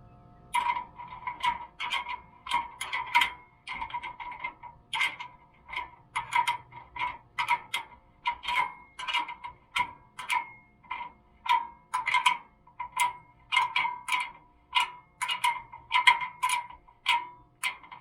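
A socket ratchet clicking in short bursts, about two a second, as it is swung back and forth to run a bolt in.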